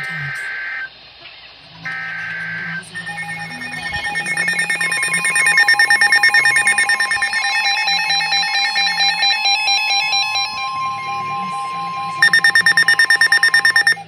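NOAA weather radios alerting for a tornado warning. It opens with the short screeching bursts of the SAME digital header, then from about 3 s in the steady 1050 Hz warning tone sounds along with several radios' own pulsing alarm beeps, and a louder rapid beeping joins about 12 s in.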